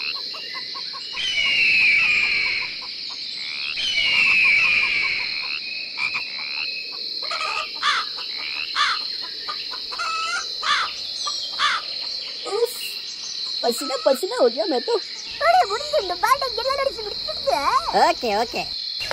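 Crickets chirping steadily, with chickens crowing and clucking over them.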